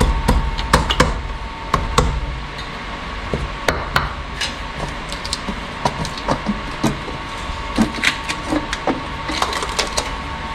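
Hands working the valve cover loose on a 451 stroker Mopar engine: scattered knocks, taps and clinks as the cover is gripped, rocked and pulled free.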